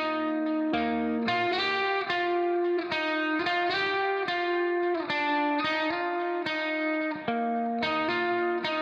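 Background music: a guitar melody, a steady run of plucked notes.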